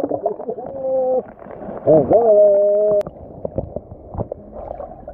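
A person's voice holding two long sung or called-out notes. The second dips and then holds steady before cutting off abruptly about three seconds in. Fainter, irregular noise follows.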